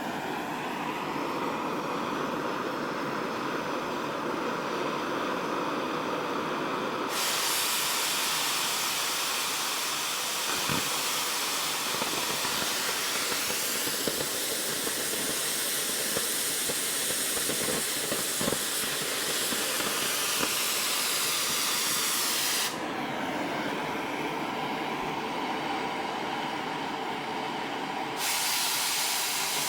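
Metal-cutting torch hissing steadily as it cuts steel plate along a scribed line. A louder, sharper hiss switches on suddenly about seven seconds in, stops abruptly a little past the middle, and comes back on near the end.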